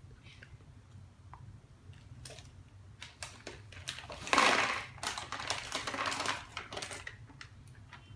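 Foil snack bag crinkling as it is handled, then a loud run of rustling and crackling for about three seconds from around four seconds in as the puffed snack is tipped out of the bag into a small plastic box.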